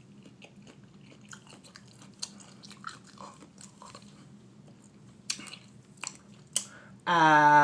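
A man chewing and biting mustard-coated apple slices, with faint wet clicks and crunches. About seven seconds in, a loud drawn-out vocal sound from him, held on one pitch for over a second.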